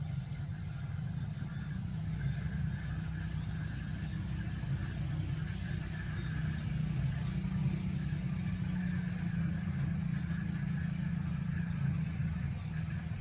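Steady low engine-like rumble, like a vehicle running or idling, with a constant high-pitched whine above it.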